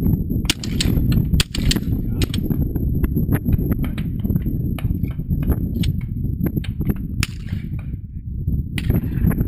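Shotgun shots at clay targets in the first second and a half, then scattered sharp clicks and knocks. Wind rumbles steadily on the microphone throughout.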